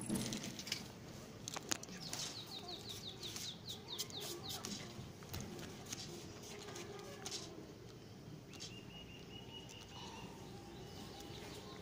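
Faint bird chirping: a quick run of short, falling chirps about two seconds in, and later a thin, steady high note, over low background noise with a few clicks.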